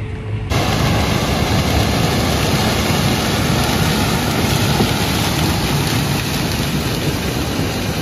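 John Deere combine passing close by while harvesting standing corn, its Geringhoff corn head pulling the stalks through the row units: loud, steady machine noise that starts abruptly about half a second in.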